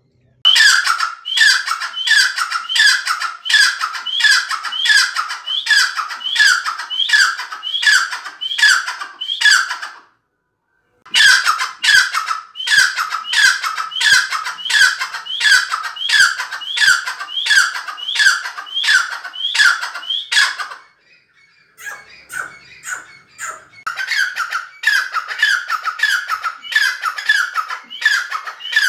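Grey francolin (teetar) calling: a loud, rapid run of shrill repeated notes, about two a second. The run breaks off for a moment about ten seconds in, and again goes fainter and ragged for a few seconds later on before picking up.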